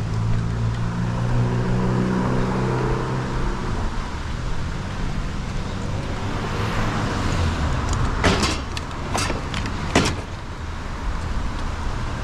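A motor vehicle's engine running, over steady traffic noise. There are a few sharp knocks near the end.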